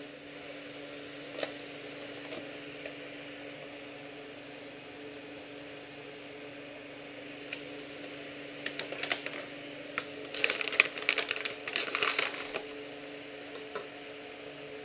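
Metal measuring spoon scraping and tapping against a stainless steel funnel while granulated priming sugar rattles down through it into a bottle, in a dense run of clicks about two-thirds of the way in, with a few single clicks earlier. A steady low hum sits underneath.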